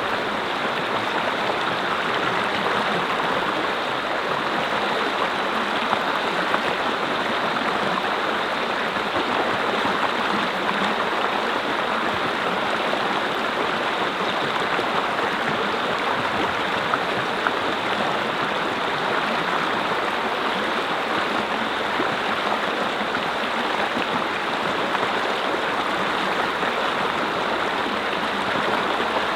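Mountain brook flowing over stones, a steady rushing and babbling of water.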